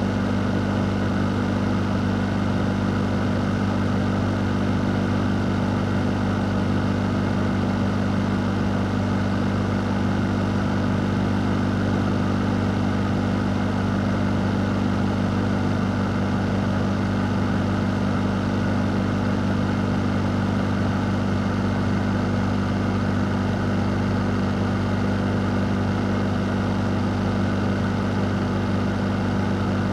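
A fan running steadily: an even, unchanging low motor hum under a wash of air noise, with no change in speed.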